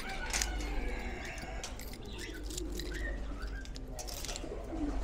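Caged birds calling in an aviary: low cooing and higher short chirps, with a few sharp clicks.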